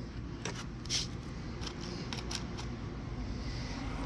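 A few light clicks of small metal washers being handled and fitted onto the electric cooling fan's mounting bolt, over a steady low background rumble.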